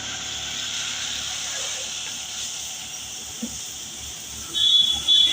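Pressure washer spraying water, a steady hiss that thins slightly as it goes. Near the end a loud high-pitched tone sounds twice, briefly.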